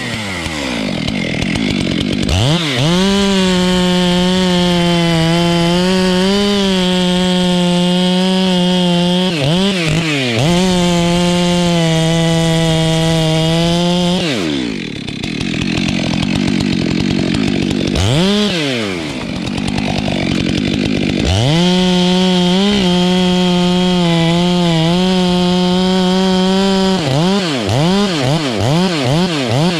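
Stihl MS 462 two-stroke chainsaw revving up to full throttle and holding there for about ten seconds while cutting wood. It drops back to idle, gives one brief rev, and returns to full throttle for another cut. Near the end it gives a string of quick revs.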